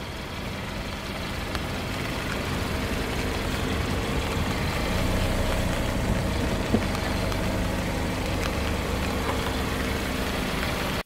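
Car engine idling with tyre noise as the car creeps forward over asphalt, slowly growing louder, with a single sharp click a little past the middle.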